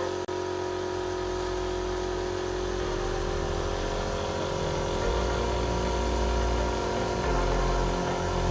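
Background music with held notes over a bass line that changes every couple of seconds, with a brief dropout just after the start.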